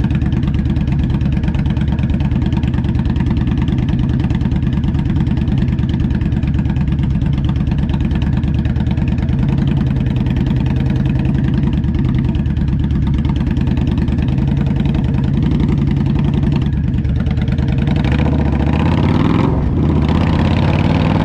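Indian Scout Bobber's V-twin engine through a Freedom Performance slip-on exhaust, ridden at a steady pace with a deep, throaty note. About 17 seconds in it eases off briefly, then the pitch rises as it accelerates near the end.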